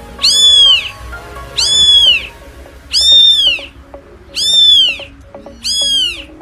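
Young kittens meowing: five loud, high-pitched meows at even intervals, each rising and then falling in pitch. Faint background music plays underneath.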